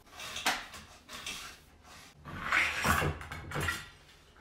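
Rustling and light knocks of grooming equipment being handled and put away around a dog grooming table, in short uneven bursts, loudest about three seconds in.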